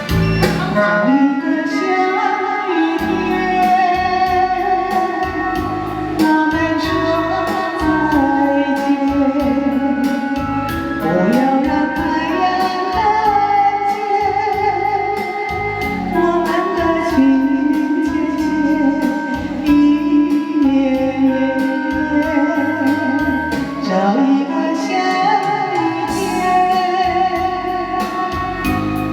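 A slow ballad playing: a wavering lead melody line over guitar and keyboard accompaniment, without sung lyrics.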